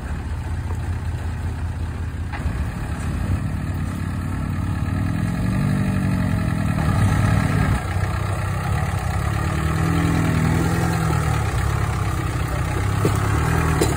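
Volkswagen TDI turbo-diesel in a Willys Jeep running at low revs as it crawls over rocks, its engine note rising and falling twice and growing louder as it comes closer.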